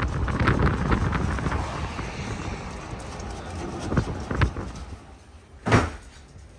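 Footsteps on pavement with wind rumbling on the microphone, and a sharp knock near the end.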